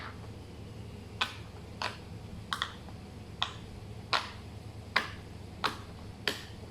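Silicone bubbles of a Pop N' Play fidget toy being pushed through one after another, each giving a sharp pop, about ten in all, roughly one every 0.7 seconds, with two in quick succession near the middle.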